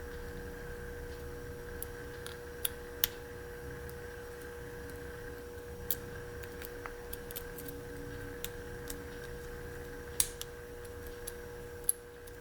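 Hermex CH-50 padlock being single-pin picked under light tension: irregular small metallic clicks and ticks of the pick working the pins, a handful sharper than the rest, over a steady faint background hum.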